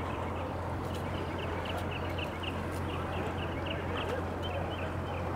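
Twin outboard motors idling with a steady low hum as a boat comes in slowly, over a run of short high ticks at about three to four a second.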